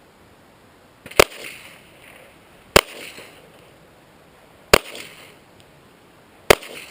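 Four shots from a Glock 9mm pistol, one every one and a half to two seconds, each with a short echo.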